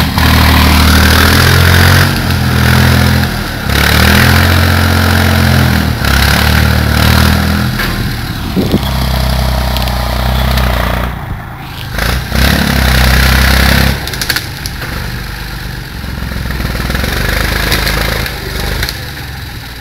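Tractor backhoe loader engine revving up and down under hydraulic load as the loader arm lifts a fallen tree trunk, in several loud spells, then settling to a lower, steadier running for the last few seconds.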